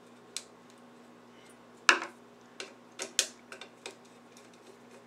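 Sharp clicks and light knocks of small metal parts being handled and fitted onto a Leslie speaker's upper motor assembly. The loudest knock comes about two seconds in, followed by a quick run of lighter ticks.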